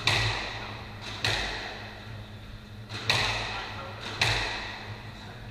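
Squash ball hits during a rally: four sharp, echoing cracks in two pairs, each ringing out in the hall.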